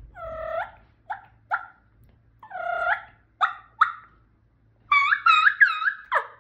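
Wild turkey purr made on a diaphragm mouth call, a small throat vibration run over the reed. It comes as curling notes: a longer one followed by two short ones, twice, then a quicker run of notes about five seconds in.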